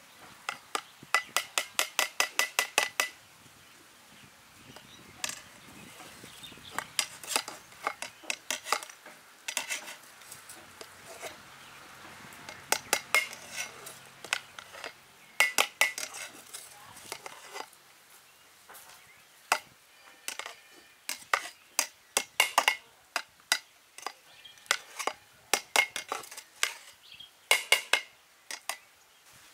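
Perforated metal skimmer ladle stirring cooked rice pilaf in a large metal pot, clinking and scraping against the pot's sides in repeated runs of quick clinks.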